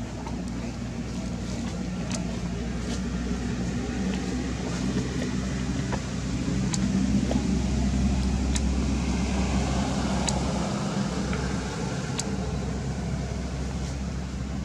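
Steady low hum of a running engine, growing a little louder about halfway through, with a few faint clicks.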